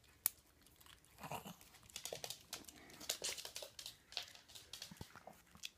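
Hard peanut-butter dog biscuit crunching: a sharp snap just after the start, then faint, irregular crackles and crunches for several seconds.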